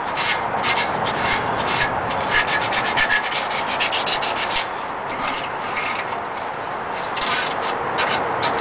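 Sandpaper rubbed by hand in quick back-and-forth strokes over the steel standard of an old theater seat, wet-sanding with 220 and 400 grit to take off old wax and rust before priming. The strokes ease off for a moment past the middle, then pick up again.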